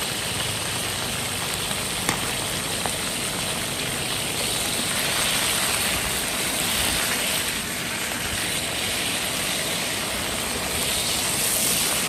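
Green chili peppers sizzling in hot oil in a small pan as they are stir-fried with a wooden spatula, a loud, steady hiss.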